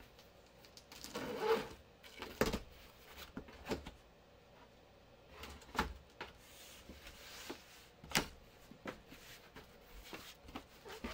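Cardboard shipping box being cut open along its taped seam with a utility knife and its flaps pulled back: irregular rustling and scraping of cardboard with several sharp knocks.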